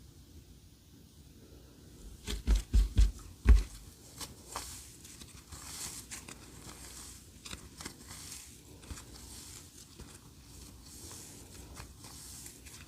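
Clear slime being worked by hand: four deep, loud pops about two seconds in, then soft crackling and small clicking pops as it is stretched and squished.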